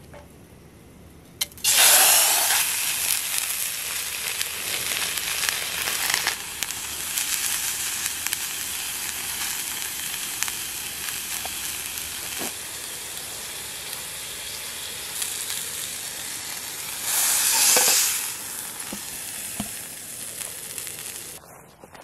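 A raw steak laid into hot oil in a small camping frying pan over a gas burner, sizzling suddenly loud about a second and a half in and then frying steadily. The sizzle swells again briefly near the end and stops just before it.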